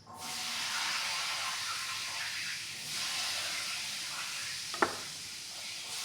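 Steady hissing noise that starts abruptly, with a single sharp click a little under five seconds in.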